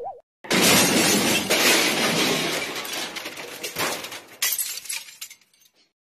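Glass-shattering sound effect: a loud crash about half a second in, then a long spill of breaking and tinkling glass with a few smaller crashes along the way, dying away near the end.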